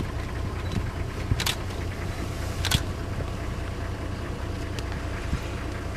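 DSLR camera shutter firing, three sharp clicks about a second and a half apart, over a steady low rumble.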